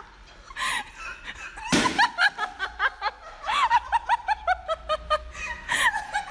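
Laughter: a quick run of short, high giggles and snickers. There is one sharp smack about two seconds in.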